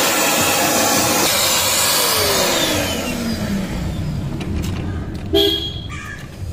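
Vacuum cleaner running with a loud, steady rush of air, switched off just over a second in; its motor winds down with a falling whine over the next couple of seconds. A brief tone sounds about five seconds in.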